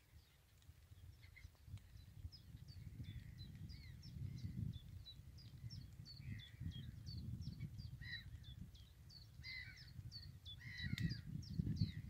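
Wild birds calling over flooded riverside reeds: a steady run of short, high, downward-sliding chirps about three a second, with a few harsher, lower calls in the last few seconds. A low rumble sits underneath and grows louder near the end.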